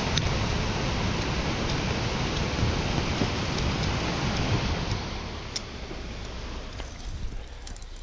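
Irrigation sprinkler spray, a steady rain-like hiss of water, dying down after about five seconds.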